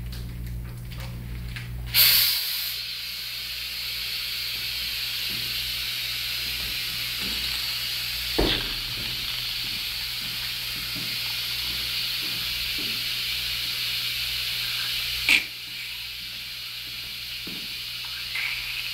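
Hospital suction unit hissing steadily through a thin suction catheter, clearing a newborn's mouth and airway of secretions. The hiss starts abruptly about two seconds in, and two short clicks come later, one about halfway and one near the end.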